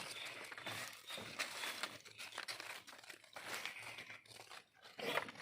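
Faint irregular rustling and crackling.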